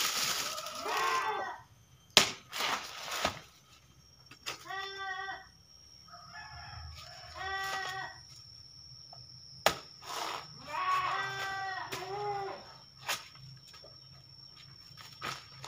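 Chickens clucking and crowing in a series of short pitched calls, with a few sharp knocks of a blade chopping into a banana plant's trunk.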